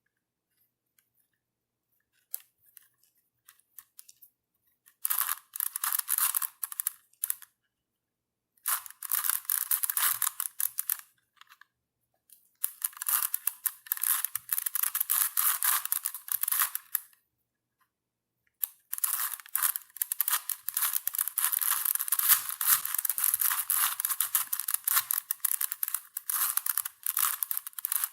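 Rubik's cube being turned quickly, its plastic pieces clicking and rattling in fast runs of a few seconds each with short pauses between. The first few seconds are nearly silent, and the longest run fills the last third.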